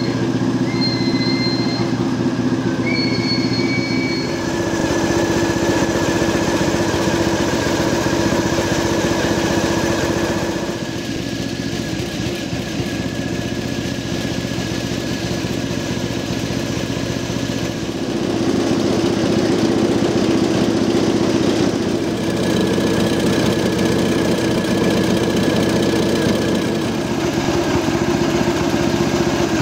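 Small engine of a miniature diesel-outline locomotive idling steadily. Its note shifts a few times, and it is quieter for several seconds in the middle. A few short high squeaks sound in the first seconds.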